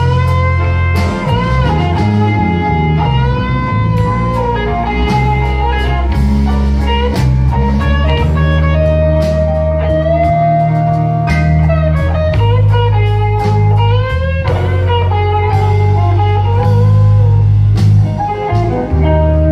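A live blues band playing: an electric guitar plays a lead line with bent notes over a walking bass and a drum kit.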